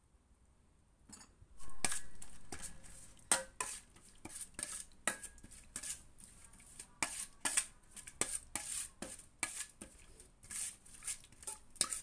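A metal spoon clinking and scraping against a stainless steel mixing bowl as it stirs a wet chili dressing, in quick, irregular strokes that start about a second and a half in.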